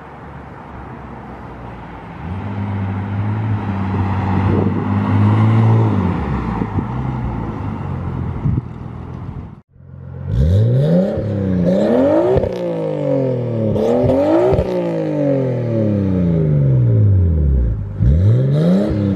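A vehicle drives past, getting louder and then dropping in pitch as it goes by. Then a Nissan Skyline R32's RB turbocharged inline-six is revved about four times at a standstill through a stainless steel HKS exhaust with the mid muffler cut out. Each rev climbs quickly and falls back slowly.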